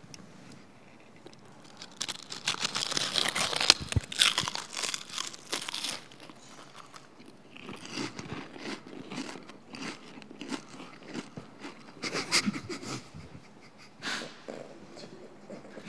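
Crunchy snacks being bitten and chewed right at a microphone, ASMR-style, in bursts: a long loud crackly stretch about two to six seconds in, softer crunches after, and two short bursts near twelve and fourteen seconds.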